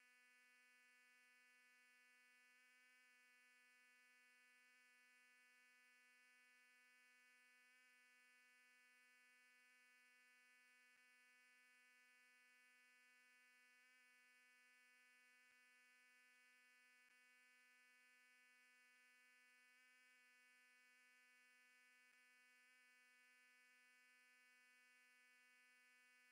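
Near silence, with only a faint steady hum made of several even tones.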